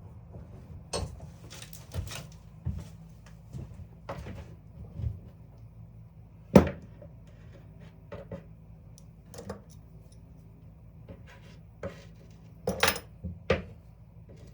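Scattered knocks and clicks of a part and tools being handled at a workbench vise, with the loudest knock about six and a half seconds in and a quick run of three near the end.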